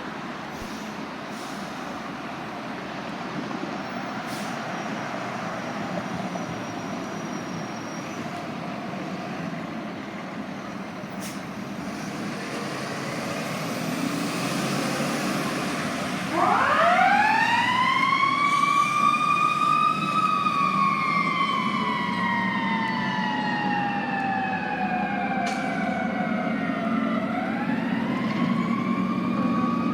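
Fire engine under way: steady engine and road noise, then about halfway through its siren starts, rising quickly in pitch, sliding slowly down over several seconds, and rising again near the end.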